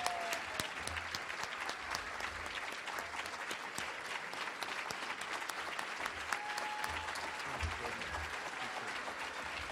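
Audience applauding steadily, many hands clapping at once, with a few brief whoops or whistles over the clapping.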